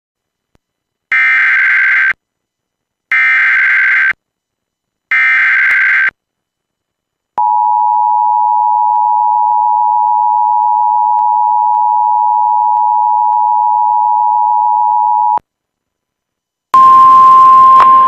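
Emergency Alert System broadcast over a radio stream: three one-second bursts of the SAME digital header, a shrill warbling data tone. Then the two-tone EAS attention signal holds steady for about eight seconds and cuts off. Near the end a loud burst of static carrying a steady tone begins.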